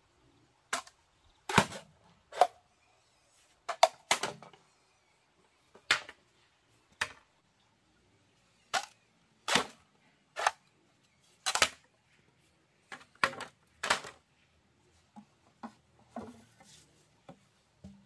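Bamboo being struck with a hand tool: an irregular run of sharp, hard knocks, about one a second, some with a short hollow ring. The blows grow fainter over the last few seconds.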